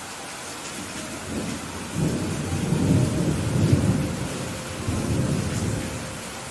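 Steady rain hissing, with a rolling peal of thunder that builds about two seconds in, surges again near the five-second mark and dies away before the end.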